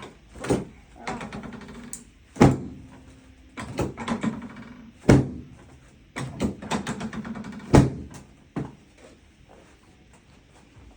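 Loud thuds from a chiropractic adjustment on the treatment table, three heavy ones about two and a half seconds apart with lighter knocks and rattles between.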